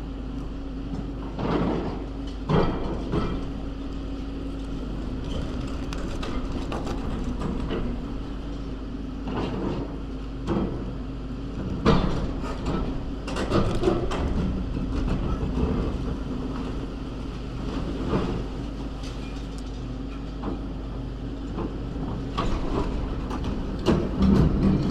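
Demolition excavator's diesel engine running steadily, with irregular knocks, clanks and clatters of rubble and metal as it works the debris.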